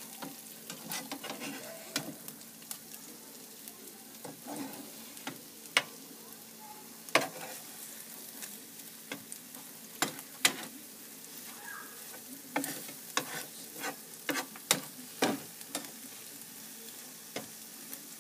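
Scrambled eggs and diced ham frying in oil in a nonstick pan, a steady faint sizzle, while a slotted spatula stirs them with irregular sharp scrapes and taps against the pan.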